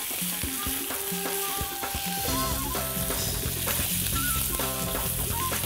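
Chicken pieces, sliced onion and chilies sizzling in a little oil in a wok as they are stir-fried with wooden spatulas, with a few knocks of the spatulas against the pan in the first couple of seconds.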